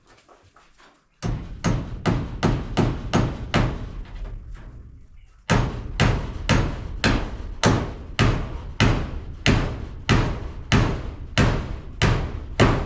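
Hammer blows driving nails. A quick run of about ten strikes starts about a second in and fades, then after a short pause the strikes come steadily, about two a second.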